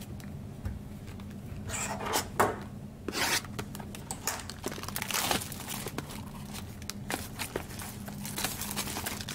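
Trading-card packaging and cards being handled: crinkling foil and a sharp tearing rip around two seconds in, another rustle about a second later, then a run of light clicks and taps as cards are shuffled and set down.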